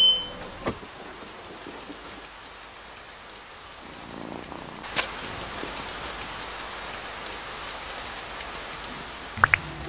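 Steady rain-like hiss with a sharp click about halfway through and two quick rising chirps near the end.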